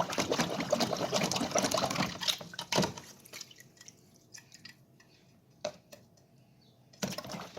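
Turbine impeller from a Karcher WD 2 vacuum cleaner's motor being washed in a bath of liquid: sloshing and splashing for about three seconds, then a few faint drips and clicks.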